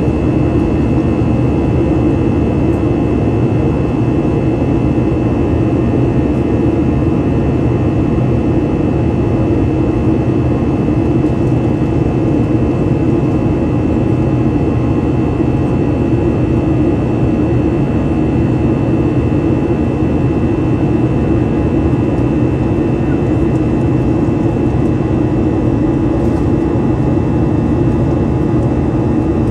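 Boeing 737 MAX jet engines and airflow heard from inside the passenger cabin: a loud, steady low rumble with a thin, steady high whine above it.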